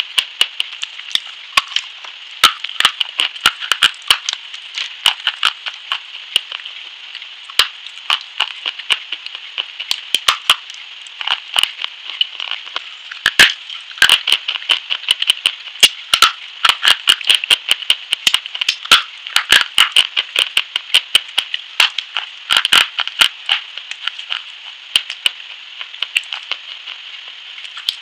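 Close-miked crisp crunching and crackling as a hard, chalky white block is bitten and chewed, with irregular sharp cracks several times a second over a steady hiss.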